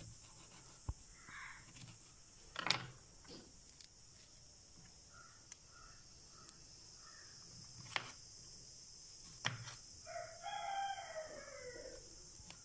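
A knife cutting cauliflower florets on a wooden cutting board, with a few sharp taps of the blade on the board. A rooster crows once in the background near the end, its call falling in pitch at the close.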